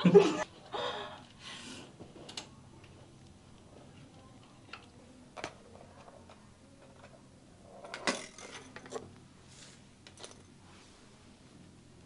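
A burst of laughter at the start, then scattered light clicks and clinks of small metal grooming tools being handled and picked out of a wooden case, with a short cluster of clicks near the end.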